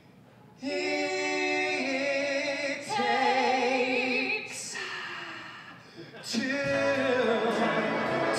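Several voices sing long, held chords in close harmony, unaccompanied and with vibrato, shifting chord a few times before fading. About six seconds in, the pit band comes in under the singing.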